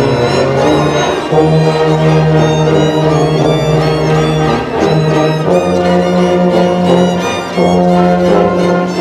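String orchestra playing, the violins bowing held notes over a bass line that moves to a new note every second or two.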